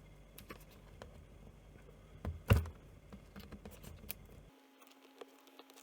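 Scattered light clicks and taps of hands handling a laptop's LCD panel, with one louder knock about two and a half seconds in.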